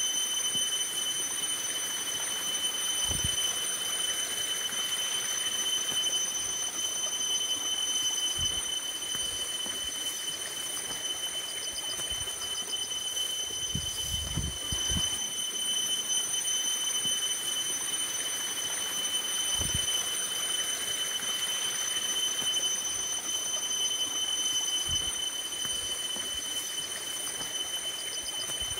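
Water running from a hose into a plastic basin, with splashes as water is scooped out with a metal bowl and poured over the body. A steady high-pitched whine sits over it throughout.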